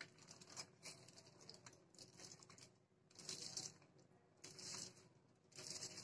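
Aluminium foil crinkling faintly as a soft coconut roll is rolled across it, in several short rustles, the longer ones in the second half.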